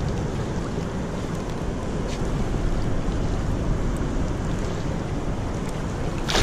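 Water sloshing and splashing as a pike is drawn into a landing net beside a float tube, over a steady low rumble of wind on the microphone. A sudden louder splash comes at the very end.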